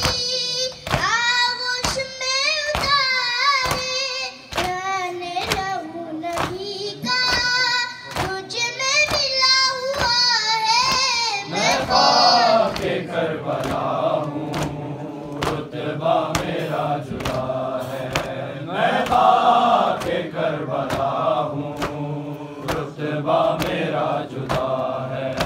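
A boy chanting a noha, a Shia lament for Karbala, solo in a high voice over a steady beat of open-handed slaps on chests (matam). About twelve seconds in, the congregation of men and boys takes up the refrain in chorus in lower voices, the chest-beating rhythm continuing.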